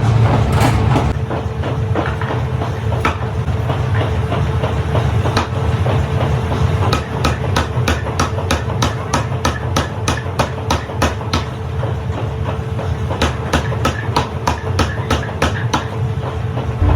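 Hammer blows on metal in a forge: a fast run of regular strikes, about three to four a second, then a short pause and a second run, over a steady low machinery hum.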